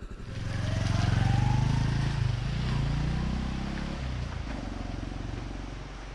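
Honda Cross Cub 110's small air-cooled single-cylinder four-stroke engine revving up as the bike pulls away, its pitch rising, then easing off and fading a little toward the end.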